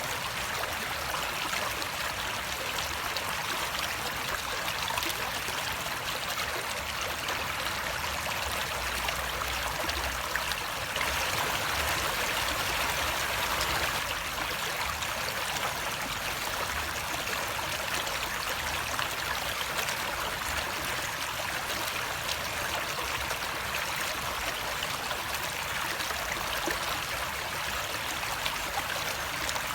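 Running water flowing steadily in a stream, an even rushing and trickling that swells a little for a few seconds about eleven seconds in.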